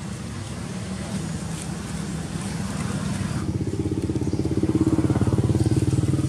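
A motor vehicle engine running nearby, a low pulsing hum that grows louder from about halfway through as it draws close.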